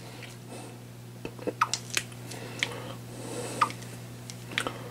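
Barbecue sauce squelching out of a plastic squeeze bottle into a measuring spoon and being tipped into a stainless steel saucepan, with a few sharp clicks and taps scattered through, over a steady low hum.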